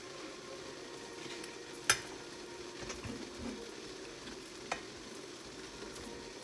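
Water boiling in a pot with corn cobs in it, a steady bubbling hiss, with a sharp click about two seconds in and a lighter one near five seconds.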